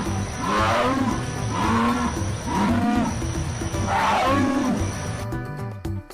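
Jaguar calling: about four hoarse grunting calls, roughly one a second, each rising and falling in pitch. Background music runs underneath and is left on its own near the end.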